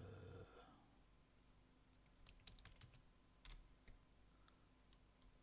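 Faint keystrokes on a computer keyboard: a quick run of taps about two seconds in and a few more near the end, as a terminal command is typed and entered.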